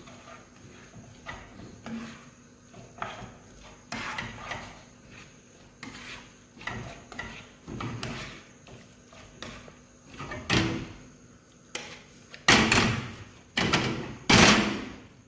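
Spaghetti being tossed in tomato sauce in a frying pan, with a spatula knocking and scraping against the pan: irregular clatter, the loudest few strikes near the end.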